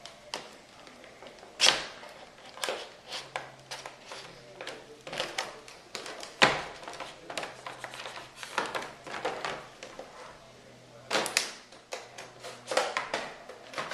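Packaging being handled during an unboxing: irregular crinkles, taps and clicks, with a few louder knocks about 2, 6 and 11 seconds in.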